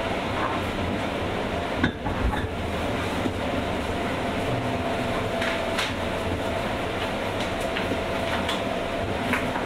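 JR West 201 series electric commuter train running on the rails, heard from its motor car MoHa 201-199: a steady running rumble with a constant hum and a few sharp clacks, the loudest about two seconds in.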